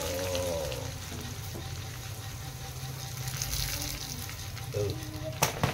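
Flattened rice (chuda) sizzling as it deep-fries in hot oil in a wire-mesh strainer held in a steel kadai. A sharp knock comes near the end.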